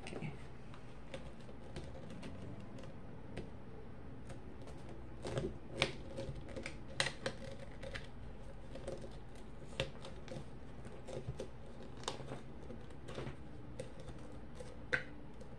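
Irregular light clicks and taps of a plastic tumbler and its diamond-painted wrap being handled and pressed together, with a handful of louder clicks scattered through.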